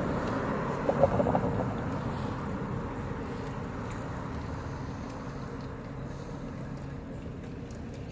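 Street traffic: a car passes close by and its noise is loudest about a second in, then fades to a steady city hum.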